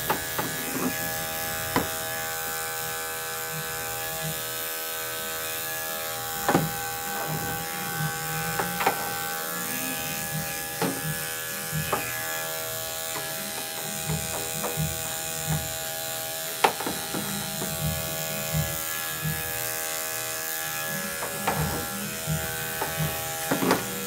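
Andis five-speed electric dog clipper running steadily, shaving the hair of a small dog's hind leg, with a few short sharp clicks along the way.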